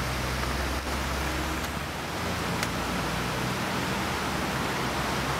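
Mercedes G65 AMG's twin-turbo V12 idling: a steady low hum under an even hiss.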